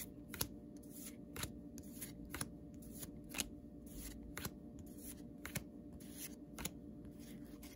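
Pokémon trading cards flipped through one at a time by hand, each card sliding off the stack with a soft flick, about two a second.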